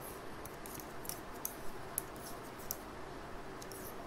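Knitting needles clicking and tapping faintly as a row of purl stitches is worked, a few small irregular ticks over a soft steady hiss.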